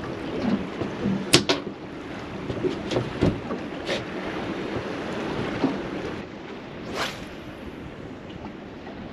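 A few sharp knocks and clicks, the loudest a pair about a second and a half in, over a steady wash of water and wind noise on a small boat.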